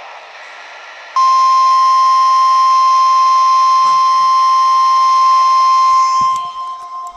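NOAA Weather Radio warning alarm, its 1050 Hz tone sounded for the weekly test: one loud, steady high tone that starts about a second in and cuts off about five seconds later. Faint knocks follow it.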